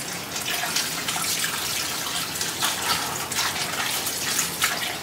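Kitchen tap running, water splashing into a sink.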